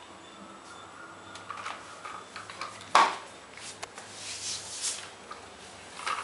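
Plastic toy being handled on a tiled floor: scattered light clicks and clatter, with one loud knock about three seconds in.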